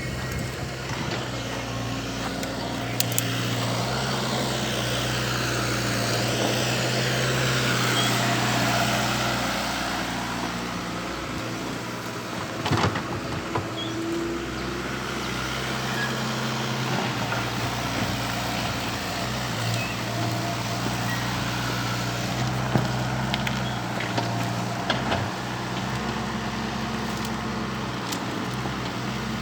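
Volvo excavator's diesel engine running, its pitch and loudness rising and falling as the hydraulics take load, with a few sharp metal clanks.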